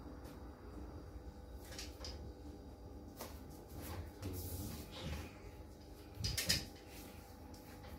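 Scattered light clicks and knocks from work on a kitchen cupboard front, with a brief scrape about four and a half seconds in and a louder cluster of clicks about six and a half seconds in: a utility knife trimming wallpaper against the cupboard doors and drawers.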